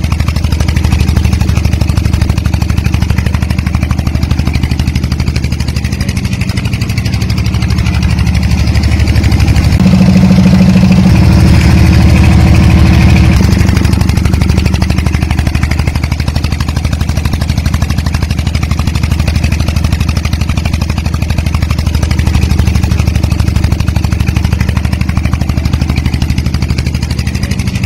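Miniature model engine running steadily, belt-driving a toy flour mill as it grinds flour. A low, steady engine hum that shifts a little in pitch about ten seconds in and again a few seconds later.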